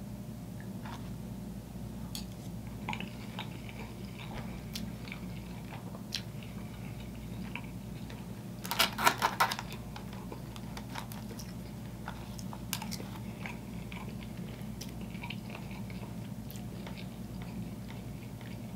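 Close-miked chewing of a mouthful of chicken and rice in white sauce, with small wet mouth clicks, over a steady low hum. About nine seconds in comes a short loud clatter of a metal spoon scraping and knocking in an aluminium foil takeout tray.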